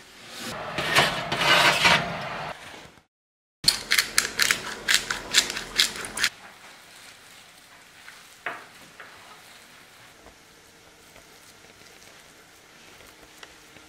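A hand spice mill is twisted over minced beef, making a quick run of crunching clicks for a couple of seconds. This comes after a loud, noisy rush at the start that is cut off abruptly, and it is followed by faint handling sounds.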